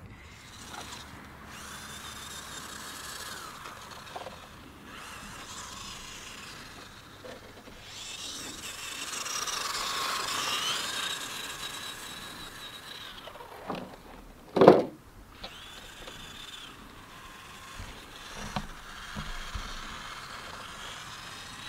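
Electric motor and gearing of a Traxxas RC short-course truck whining as it drives over grass, the pitch rising and falling with the throttle and loudest about ten seconds in. A single sharp knock about fifteen seconds in.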